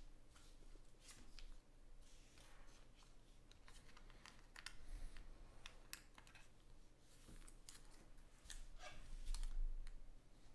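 Faint scattered clicks and rustles of trading cards and plastic card holders being handled, a little louder about five seconds in and again near the end.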